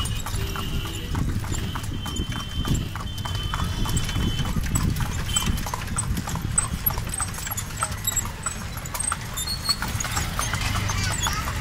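Hooves of a horse pulling a tanga (two-wheeled horse cart) on a paved street, a steady clip-clop of hoofbeats over a low road rumble.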